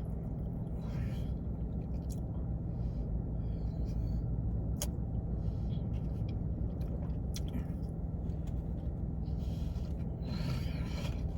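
A person chewing a sub sandwich, with a few faint mouth clicks, over a steady low rumble.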